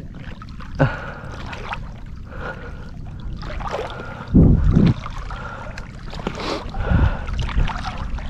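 Water sloshing and gurgling as people wade waist-deep through a flooded reed marsh, with a few short knocks and a brief louder low burst about halfway through.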